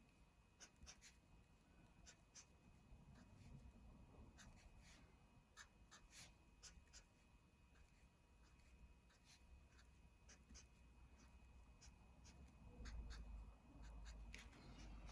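Faint taps and scratches of a colouring tool on paper, dabbing in polka dots one after another, with a soft low bump of handling noise near the end.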